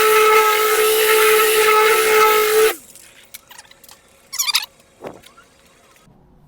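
Electric car polisher running at a steady high whine with a hiss of the pad. It stops suddenly a little under three seconds in, its pitch sagging as it spins down. Then come a few faint knocks and a short high chirp.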